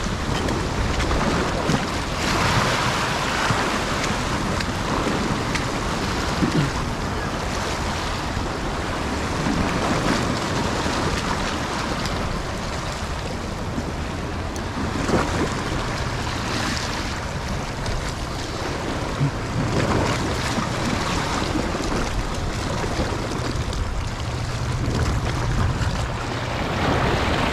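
Sea waves washing in, with wind buffeting the microphone; the noise swells and eases every few seconds.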